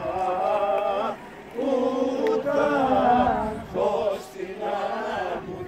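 A group of people singing unaccompanied, long held notes in phrases broken by short pauses for breath.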